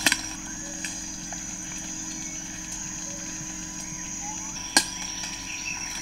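Rainforest ambience: a steady high-pitched insect drone over a low hum, broken by two sharp cracks, one at the start and another about five seconds in.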